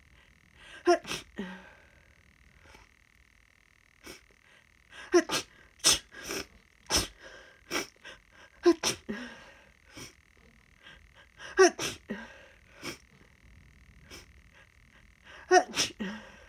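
A person's sneezing fit: very rapid, tickly sneezes coming in quick runs of two or three, five runs in all, with short pauses between.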